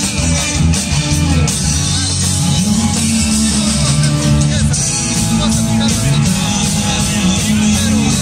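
Live rock band playing loudly: electric guitar, bass guitar and drums, with a singer on the microphone.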